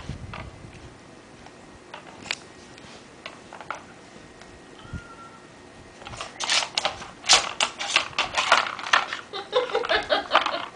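Plastic parts of a Nina Ottosson Tornado dog puzzle clicking and clattering as a dog paws at it: a few scattered clicks, then a quick run of clicks and rattles from about six seconds in.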